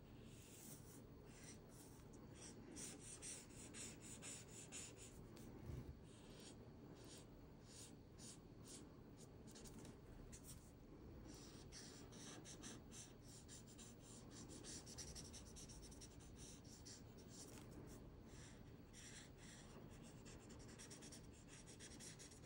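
Faint swishing of a felt-tipped alcohol marker's tip stroking across paper in quick, repeated back-and-forth strokes, coming in runs as a light warm gray is laid down over a pencil sketch.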